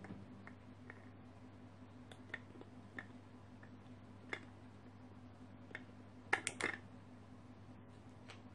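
Low steady hum from the guitar rig with the playing stopped. Scattered small clicks come from a hand handling the pedals, with a quick cluster of louder clicks about six and a half seconds in.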